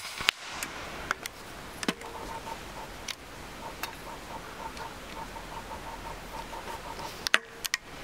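Shots from an EDgun Leshiy 2 .22 PCP air rifle: a sharp crack at the start and another about seven seconds in, with lighter clicks between them.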